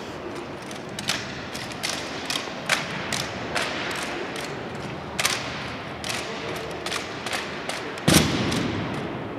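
M1903 Springfield drill rifles being tossed and caught by a drill team: a string of sharp slaps and clacks as the rifles smack into gloved hands. About eight seconds in comes a loud thud as many rifle butts strike the floor together.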